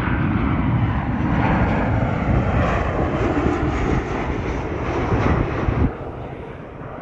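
Jet airliner engines giving a loud, low rumbling roar as the plane passes close by, dropping off sharply about six seconds in.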